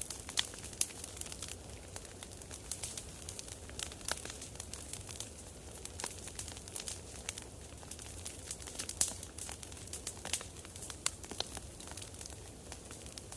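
Campfire burning, the wood crackling with many irregular sharp pops over a soft steady hiss.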